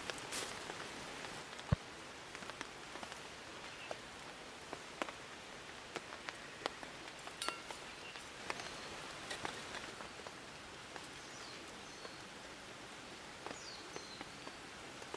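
Steady rain falling, with scattered drops tapping irregularly and one sharper tap about two seconds in.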